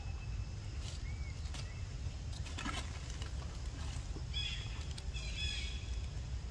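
Outdoor ambience: a steady low rumble with scattered light clicks and rustles, and a few short high chirps, most of them clustered about four to five and a half seconds in.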